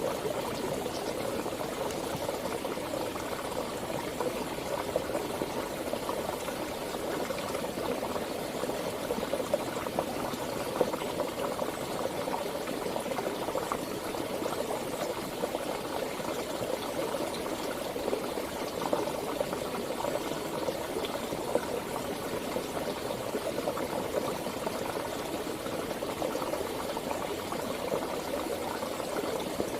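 Mountain river flowing, a steady rush of water dense with small splashes, with no pauses or changes.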